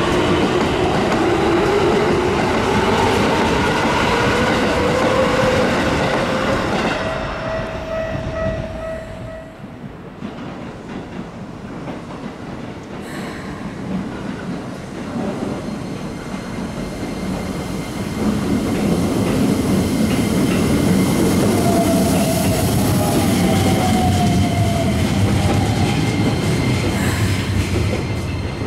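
Keikyu electric trains. About the first seven seconds, a train's traction motors whine, the pitch climbing as it pulls away, and then the sound fades. From about 18 s another train goes by loudly, its wheels clattering over the rail joints and its motor whine falling in pitch.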